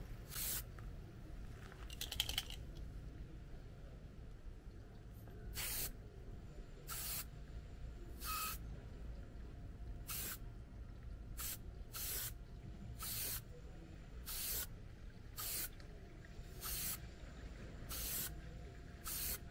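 Aerosol touch-up spray paint can hissing in about a dozen short bursts, each well under a second, a second or so apart. The can is putting light coats of paint onto a scratched car bumper.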